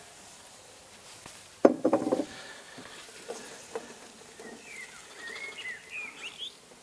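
Wooden spatula stirring and scraping diced bacon and onions in a stainless steel gastronorm pan over charcoal, with a faint sizzle of frying. A short, loud metallic clatter comes about one and a half seconds in, followed by lighter knocks of the spatula against the pan.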